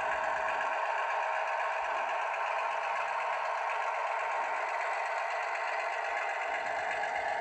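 Diesel engine sound from the ESU LokSound decoder in an HO scale Athearn Genesis GP15-1 model locomotive, played through its small onboard speaker and running steadily at low throttle as the model creeps along at speed step 5. It sounds thin, with little bass.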